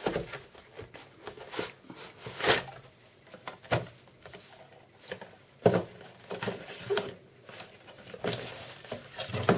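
Cardboard box and packaging being handled and opened: irregular rustles, scrapes and knocks, about a dozen separate strokes.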